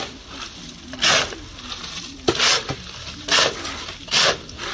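Shovels scraping and scooping through a heap of wet concrete mix, a gritty stroke about once a second, with one sharp clink a little past halfway.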